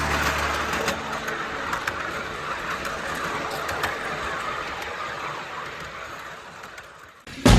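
Miniature railway train running along its track: a steady rumbling rattle with scattered light clicks that slowly fades away. Loud music with a beat cuts in just before the end.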